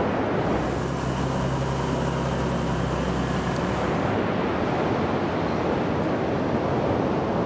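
Rushing ocean water with wind buffeting the microphone. A steady low hum sits under it from about half a second in until about four seconds in.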